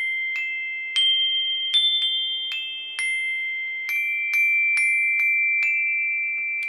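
Homemade xylophone of tuned aluminum rods struck with a wooden-ball mallet: about a dozen single notes picked out one after another. Each bar keeps ringing long after the strike, so the notes overlap.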